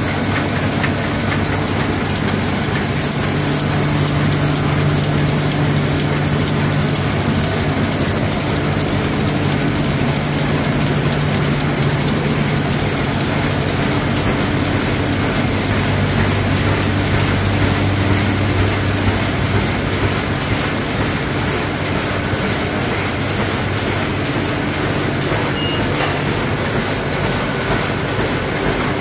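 Heidelberg Speedmaster XL 75 sheetfed offset press running, feeding and delivering sheets: a loud, steady mechanical clatter over a low hum, with a fast, even beat that grows clearer in the second half.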